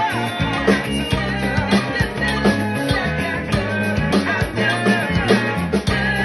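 Fender Custom Shop electric bass guitar playing a funk bass line over a band recording with drums and singing. The bass notes are steady and rhythmic underneath.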